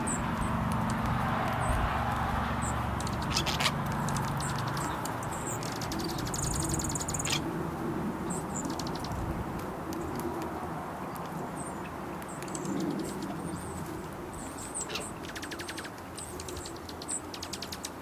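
Starling calls: short high chirps and whistles with several clicking rattles, the longest about six seconds in, over a steady low background rumble.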